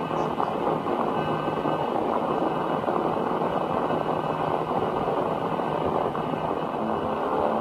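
Steady, dense rumbling hiss with faint high tones above it, unchanging throughout: space radio emissions from a planet or moon converted into audio.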